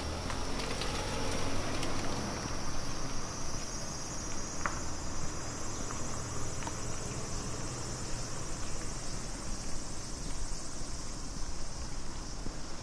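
Insect chorus, a steady high-pitched trilling, heard over an even hiss of rain and a low rumble.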